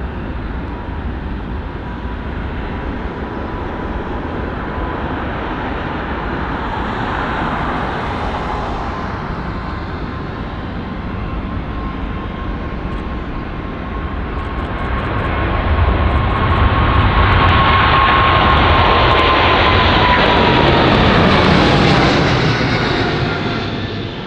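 Boeing 777F's twin GE90 turbofans at takeoff power during the takeoff roll, a steady jet noise with a thin whine. It swells to its loudest about fifteen seconds in as the plane passes, the whine dropping in pitch, then fades near the end.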